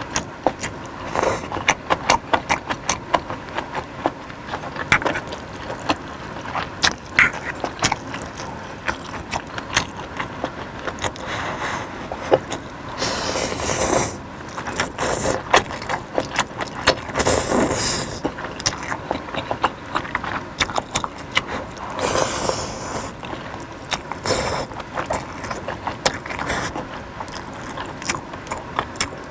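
Close-miked eating: irregular crunching and wet mouth clicks from chewing, with several longer noisy bursts in the middle and later on.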